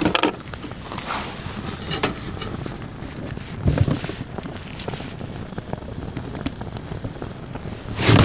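Flames from fire-starter gel burning in a small steel fire pit of damp firewood, with wind rumbling on the microphone and a few faint crackles. There is a low thump about four seconds in and a loud burst of noise near the end.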